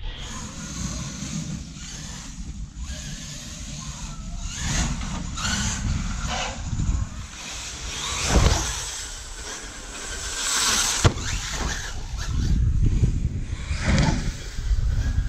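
Electric radio-controlled truck running on a 12-cell battery, its motor whine and tyre noise rising and falling as it drives and jumps, over a rough wind rumble on the microphone, with a sharp knock about two-thirds of the way in.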